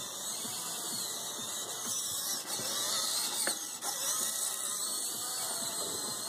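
High-pitched whine of a small wheeled robot's electric drive motors as it drives across the floor.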